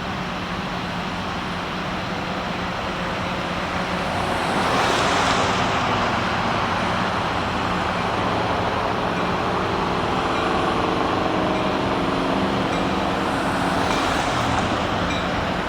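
Steady low diesel engine drone of an approaching Union Pacific local train's locomotive, with road vehicles swelling past about five seconds in and again near the end.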